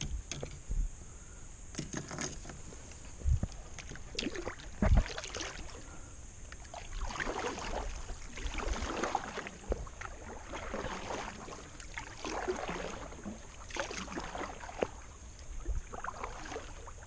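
Strokes of a double-bladed Vibe kayak paddle: the blades swish and splash through the water about once a second from about seven seconds in. Two short, sharp knocks come a few seconds in.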